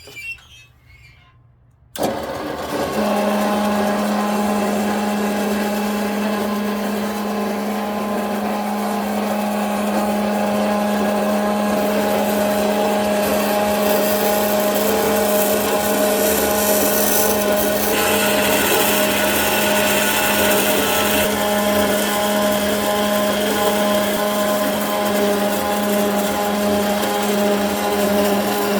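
Rex 125 portable band saw switched on and running steadily with an even motor hum. A higher hiss joins for a few seconds about two-thirds of the way through.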